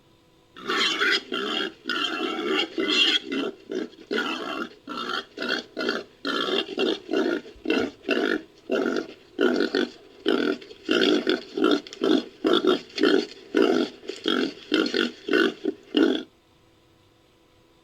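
Pig-like grunting calls in a fast run of short bursts, about two a second, from a creature sound effect made from babirusa and wild boar recordings. The calls start about half a second in and cut off abruptly about a second and a half before the end.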